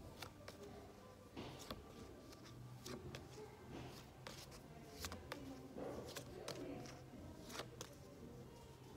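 Paper flashcards being flipped and handled: a string of soft, irregular flicks and taps.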